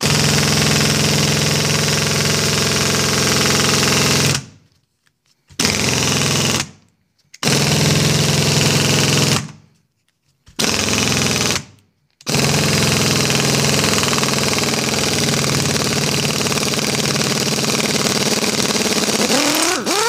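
Pneumatic wrench running in five bursts, hard on and off, as it backs bolts out of a 1972 Johnson 20 HP outboard powerhead. The last and longest run rises sharply in pitch near the end.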